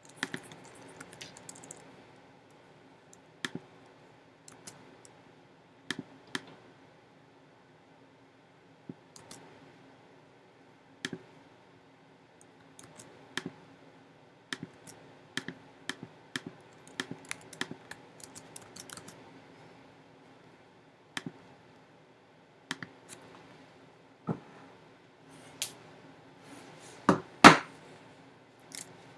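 Irregular keystroke clicks on a computer keyboard, scattered with pauses between, over a faint steady hum. Near the end come a couple of louder knocks.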